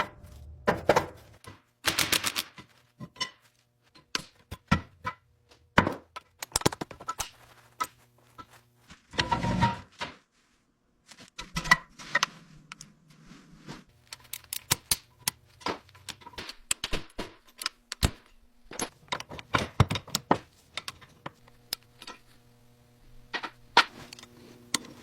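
Hand tools working on metal engine parts: irregular sharp clanks, knocks and ticks, some with a short metallic ring, and a brief silent gap about ten seconds in.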